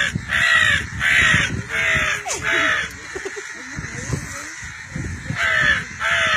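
Harsh crow caws repeated in a steady rhythm, about three every two seconds, breaking off for a couple of seconds midway and then starting again. This is a crow call meant to draw a crowd of crows.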